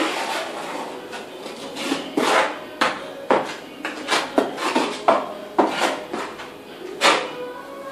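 Steel hand trowel scraping and slapping tile adhesive onto a concrete floor, in short repeated strokes about two a second, the blade ringing faintly now and then.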